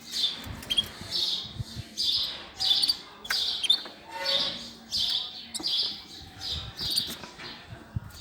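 Pet cage birds chirping, a string of short high chirps about once a second.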